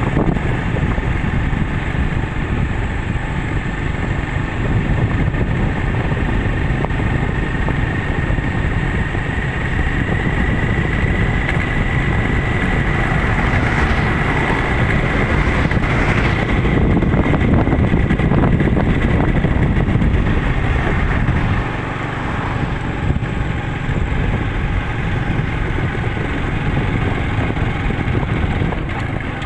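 Steady noise of a vehicle travelling along a paved road: engine and tyre noise with wind on the microphone, and a thin whine that rises a little toward the middle. An oncoming car passes about halfway through.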